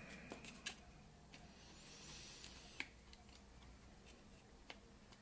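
Near silence with a few faint, scattered clicks: small plastic and metal parts being handled as a carbon brush and its lug are fitted into the brush holder of a Kenwood Chef KMC510 mixer motor.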